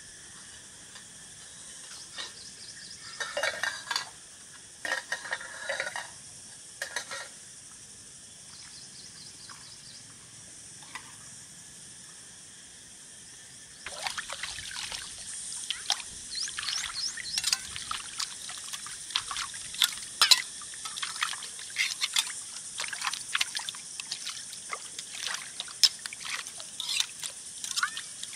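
Water pouring and trickling, with a few short splashes in the first half and quick, dense splashing from about halfway through.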